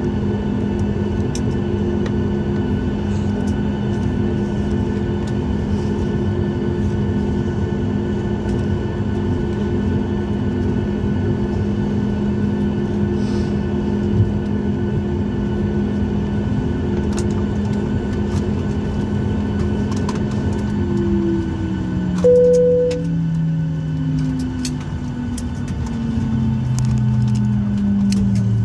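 Cabin sound of a flydubai Boeing 737: steady jet-engine drone and whine, then about 21 s in the engines are shut down and their tones slide steadily lower as they spool down. A single short chime sounds about a second after the wind-down begins.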